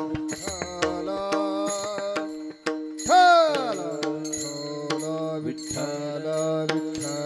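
Warkari kirtan music: a steady held drone with melody notes over it, hand-drum strokes and small hand cymbals clashing. About three seconds in, a loud drum stroke bends sharply down in pitch.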